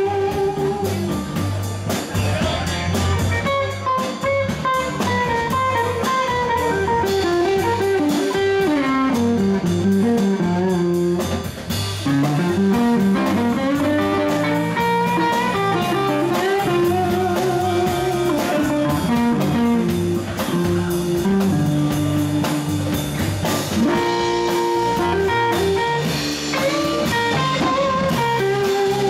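Live band playing an instrumental blues tune: an electric guitar plays a melody with sliding notes over a bass line and a drum kit.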